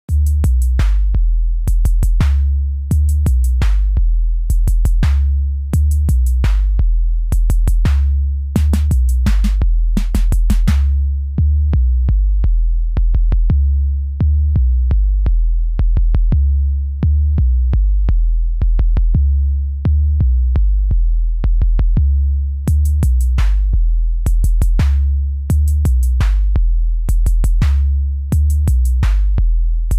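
Electronic background music: a drum-machine beat over a deep, repeating bass line. The sharp drum hits drop out for a stretch in the middle, leaving the bass and light ticks, then return near the end.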